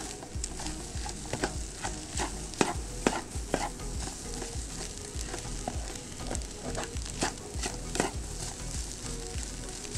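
Scrambled eggs frying in a small metal camping pot, a spatula scraping and knocking against the pot as they are stirred, over a steady sizzle. The clicks come irregularly, a few of them louder than the rest.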